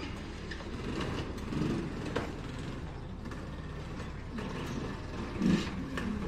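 Outdoor street background: a steady low rumble with scattered clicks and knocks, the loudest a little over five seconds in.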